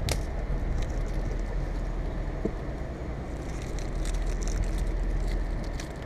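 Self-fusing rubber tape being unrolled, stretched and pressed around a cable termination, giving light crackling and clicking over a steady low rumble, with one sharp click at the start.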